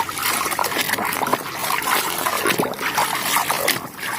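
Water splashing and trickling as a muddy toy train is washed, an irregular run of splashes.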